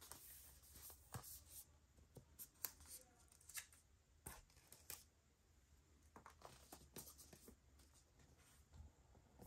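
Faint unboxing sounds from an Apple TV 4K's cardboard box and paper wrapper being handled: soft rustles of paper being torn off and a scattering of small clicks and taps.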